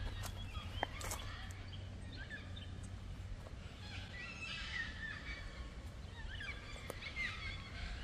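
Forest birds calling, with many short chirping notes that bend up and down in pitch. The calls are busiest around the middle and near the end, with a few sharp clicks among them.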